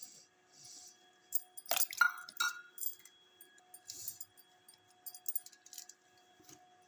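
Metal kitchen utensils clinking, with a quick run of sharp strikes that ring briefly about two seconds in, then a few lighter clinks and scrapes. A faint steady hum runs underneath.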